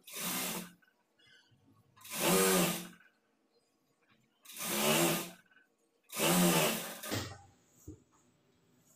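Electric sewing machine running in four short bursts of about a second each, its motor speeding up and slowing down each time, while a folded hem is stitched straight.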